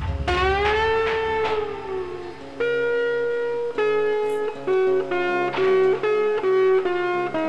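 Music: a guitar playing a lead line, opening with a long note that bends up and back down, then a run of single held notes.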